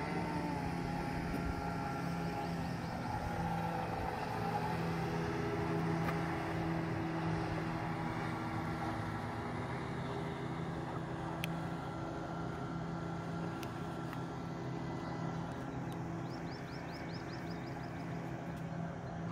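Motorboat engine running steadily, a low even hum with a few higher overtones.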